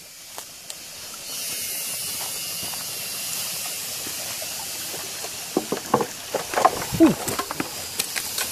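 Steady rushing of a jungle stream's flowing water. In the second half, sharp knocks and short voice-like sounds rise over it.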